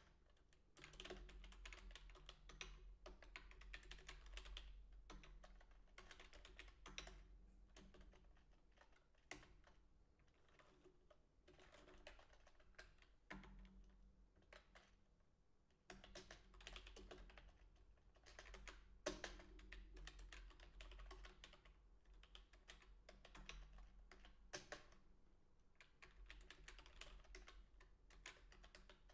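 Quiet typing on a computer keyboard, in bursts of rapid keystrokes with short pauses between them; a few single key strikes stand out louder.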